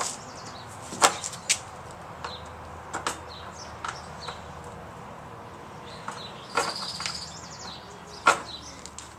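Scattered sharp clicks and knocks of hands handling parts under a riding mower's hood, the loudest near the end, with a short scraping rattle about two-thirds of the way through. Birds chirp faintly throughout.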